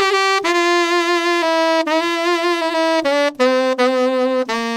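Solo saxophone playing a slow phrase of several sustained notes that step downward, ending on the lowest note, decorated with short grace notes, key bends and vibrato.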